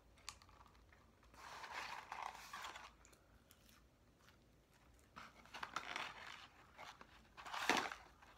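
McDonald's fries being eaten close to the microphone: three bursts of crunching and rustling, the last the loudest, near the end, with small mouth clicks between.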